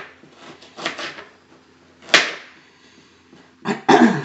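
Small steak knife cutting carrot on a cutting board: a few knocks of the blade on the board, one sharp one about halfway. Near the end there is a short louder sound that drops in pitch.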